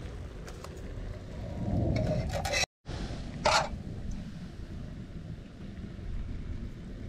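Wind rumbling on the microphone, with one short, sharp scrape about three and a half seconds in, just after a brief cut to silence.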